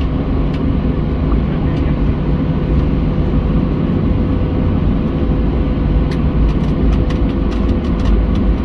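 Boeing 737-700 taxiing, heard from the passenger cabin: a steady low rumble from its CFM56 engines at taxi power and its wheels on the taxiway, with a steady hum above it. Light ticks or rattles come in near the end.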